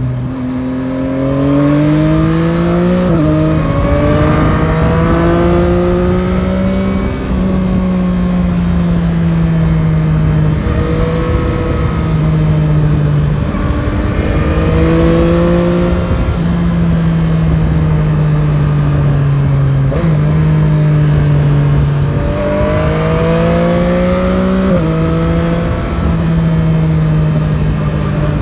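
Yamaha Tracer 9 GT's 890 cc CP3 inline-three engine under way, its note climbing and falling with the throttle and jumping abruptly at each gear change several times over, with the low rush of wind and road noise.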